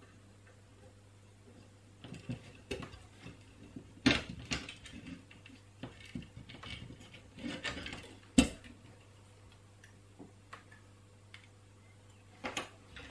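Light clicks and knocks of a small circuit board being handled in the plastic clamps of a PCB holder, with two sharper clicks about four and eight seconds in.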